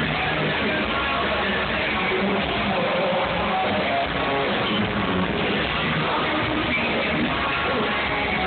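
Rock band playing a song live, guitar to the fore, in a dense, steady wash of sound.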